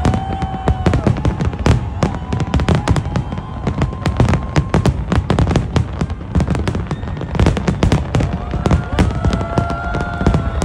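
Dense barrage of aerial fireworks: rapid booms and crackles from bursting shells, several a second, without a break.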